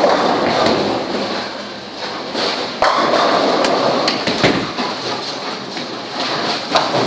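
Bowling alley hall noise: a steady din with scattered sharp knocks and thuds, several of them close together in the middle.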